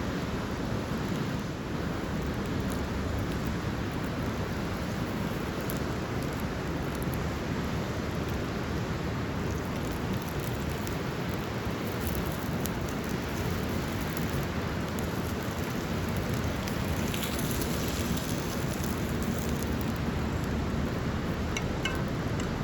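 Steady rushing of water, an even hiss that does not change, with a few faint crackles now and then.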